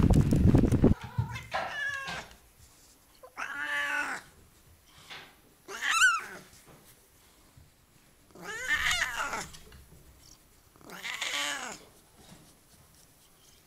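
After a second of low rushing noise, a Siamese cat meows five times in a row, a couple of seconds apart; the third meow is short and higher.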